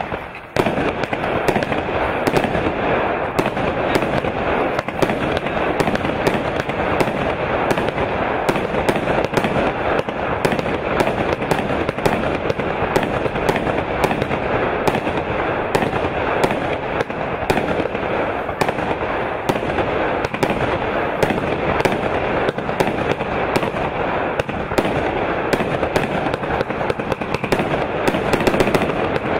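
A Brightsky 'Bangtastic' 144-shot compound firework cake firing without a break. Shot after shot goes off in quick succession, the launches and bursts overlapping into one dense, continuous barrage.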